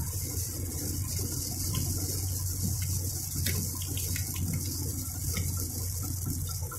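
Heavy rain heard from inside a moving car on a wet highway: a steady hiss of rain and tyre spray over a low road drone, with scattered faint ticks.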